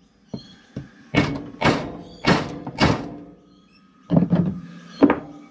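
Hammer blows on a wooden dowel driving against the tube core of a boat engine's heat exchanger, trying to knock the core out of its metal housing. Two light taps, then four heavy knocks about half a second apart, a short pause, and a few more. The corroded core stays stuck and does not move.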